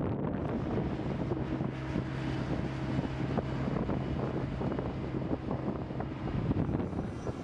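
Wind buffeting the microphone over steady engine noise, with a steady low engine hum from about a second and a half in until about six seconds in.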